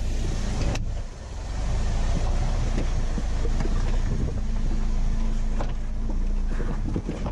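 A 2019 Jeep Wrangler Rubicon crawling over rocks directly above, its engine running steadily with a deep rumble. Scattered clicks and knocks of stones under the tyres are heard through it.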